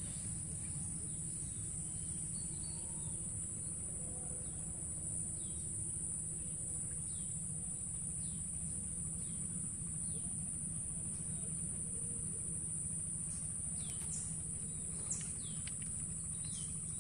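Forest ambience: a steady high-pitched insect drone with short, falling bird chirps repeating about once a second, growing more frequent near the end, over a low rumble.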